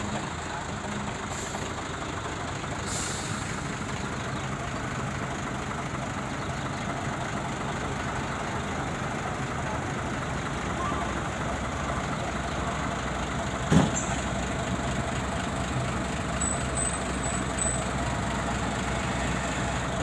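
Heavy diesel engine running steadily at idle, with a single sharp knock about two-thirds of the way through.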